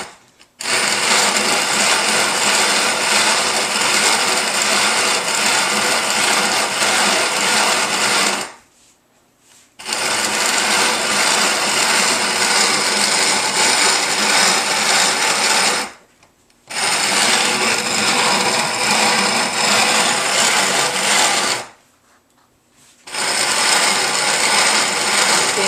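Hand-cranked Grain Maker grain mill grinding grain into coarse flour: a steady grinding rattle that stops short three times, for a second or so each, and starts up again.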